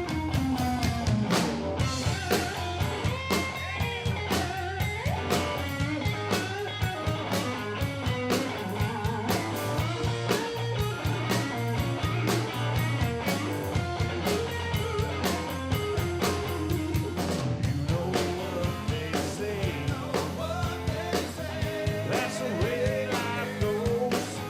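Live blues band playing a song, with electric guitar lines over a steady bass and drum kit beat.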